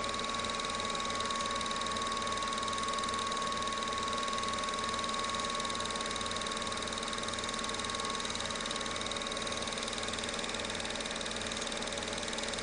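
Film projector running: a steady mechanical whir with a fast, even pulsing from its mechanism and a thin steady whine.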